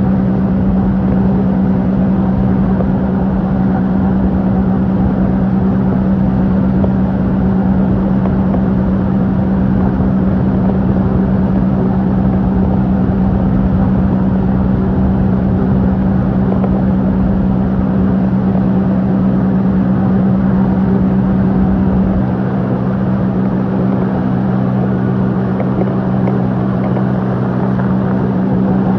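Motorboat engine running at a steady speed, a constant drone under rushing wind and water noise; the low rumble eases about three quarters of the way through.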